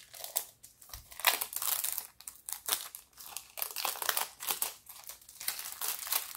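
Thin clear plastic bag crinkling and rustling in irregular crackly bursts as it is pulled off a small cardboard card box by hand.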